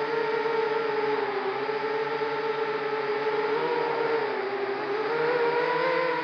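ZMR250 racing quadcopter's brushless motors and propellers whining in flight, the pitch wavering up and down with the throttle and rising a little near the end.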